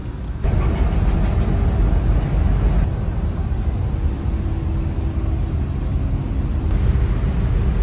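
Low, steady rumble of a Hino high-deck coach's engine and road noise heard from inside the cabin while the bus is under way. The tone changes abruptly a few times.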